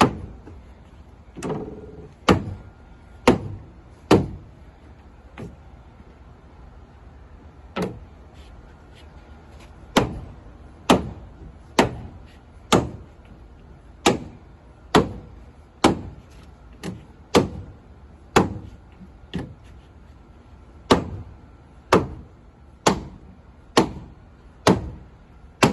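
Heavy rubber mallet striking a PVC deck board again and again, knocking it sideways onto hidden deck clips. The sharp single blows come roughly once a second, with a pause of a few seconds about a third of the way in.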